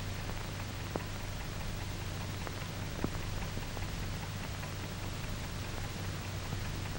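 Old film soundtrack noise: steady hiss over a low hum, with a few scattered clicks and pops, the loudest about three seconds in.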